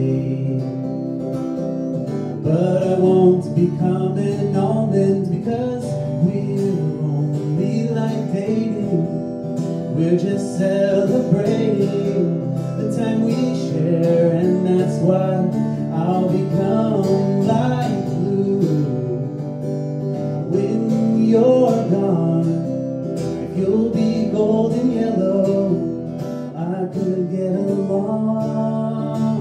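A man singing over a strummed acoustic guitar, with the voice entering a couple of seconds in.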